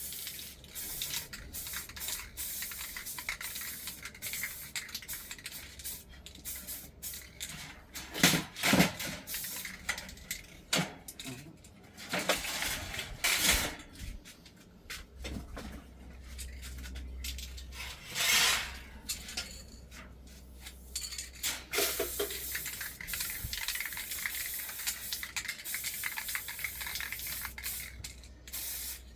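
Hand work on small aluminium parts: irregular clinks, scrapes and rubbing, with a few louder knocks and short hissing scrapes.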